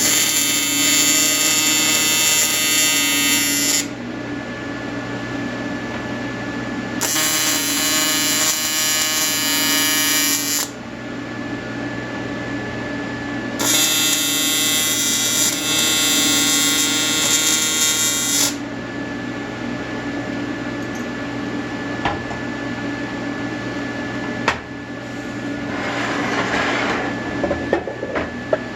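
Welding arc buzzing in three bursts of a few seconds each, with short pauses between them. A steady hum runs underneath, and a few sharp clicks and a rustle come near the end.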